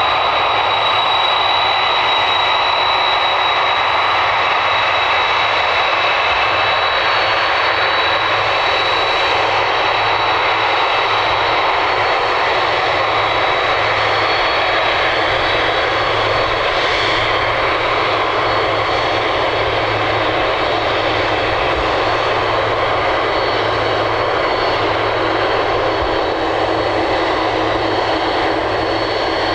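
Four turbofan engines of a Boeing 747-400 freighter running at taxi power as the jet taxis: a steady jet rumble with a high whine, the whine strongest in the first few seconds.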